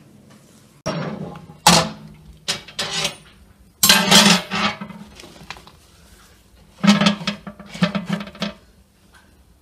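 Wire rack clattering and scraping against the metal oven compartment of an old wood-burning stove as it is handled and food is loaded in, in several bursts of metallic clanking with a ringing hum.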